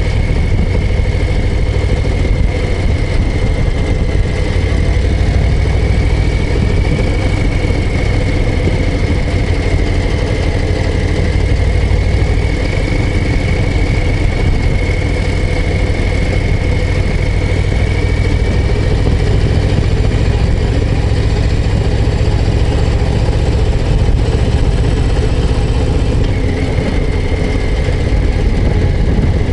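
Harley-Davidson Low Rider ST's Milwaukee-Eight 117 V-twin running steadily as the motorcycle is ridden along, its loud exhaust note holding an even pace with no big revs.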